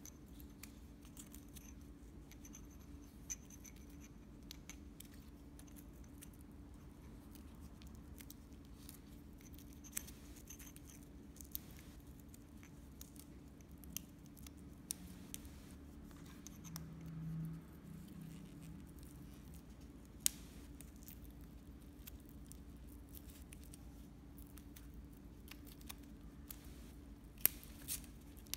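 Quiet hand work on pieces of old fishing-rod tube: sparse sharp clicks and small scrapes as a section is trimmed and pressed in tight, over a steady low hum.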